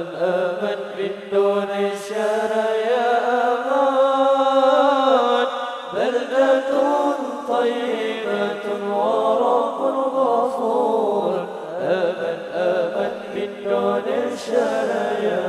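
Men's voices chanting an Arabic sholawat through microphones in long, drawn-out melismatic phrases, with no regular drumbeat.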